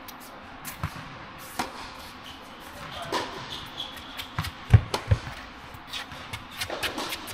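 Tennis rally on an indoor hard court: sharp pops of the ball off the rackets and bounces, with footsteps in between, echoing in a large hall. The loudest, closest hit comes about two-thirds of the way through.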